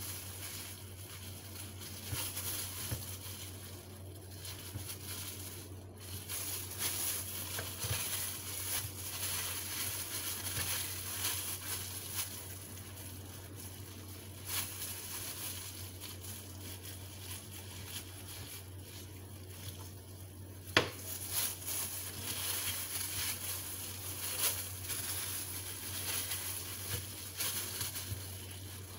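Knife slicing raw pork on a wooden cutting board, with disposable plastic gloves crinkling and small irregular scrapes and taps, over a low steady hum. One sharp knock about twenty seconds in.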